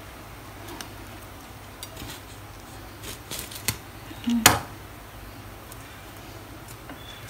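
A kitchen knife clicking and scraping against a ceramic plate while peeling the charred skin off a grilled eggplant: a few light clicks, the loudest about four and a half seconds in, over a faint steady hum.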